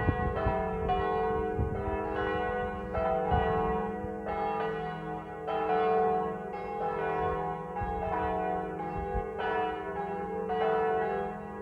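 Church bells pealing, several bells struck in quick succession about twice a second, each stroke ringing on under the next.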